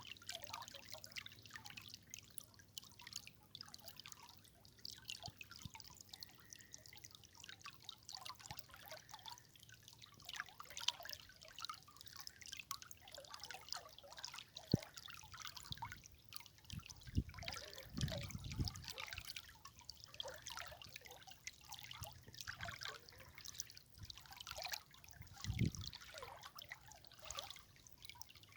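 River water trickling and babbling over stones, a busy patter of small splashes and drips. A few low thuds or gurgles stand out around two-thirds of the way through and again near the end.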